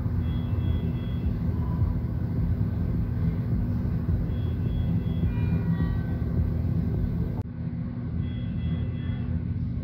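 Steady low machine hum with an electronic alarm from medical equipment sounding groups of three short high beeps, about every four seconds.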